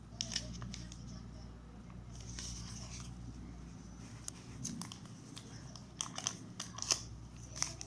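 Phone packaging being handled: plastic and cardboard crinkling and rustling, with scattered sharp clicks and taps.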